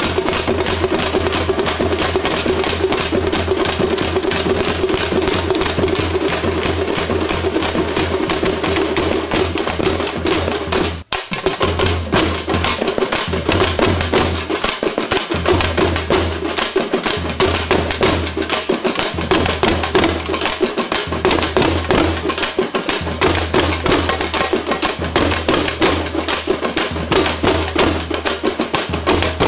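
Tamil folk drum troupe beating frame drums and barrel drums in a fast, dense rhythm. The drumming breaks off for a moment about eleven seconds in, then carries on.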